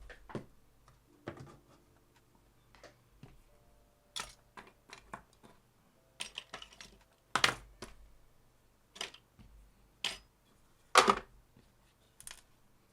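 Irregular clicks and taps of small hand tools working on the flood-damaged circuit board of a body control module as it is cleaned, about a dozen separate strikes. The loudest come about two-thirds of the way through and near the end.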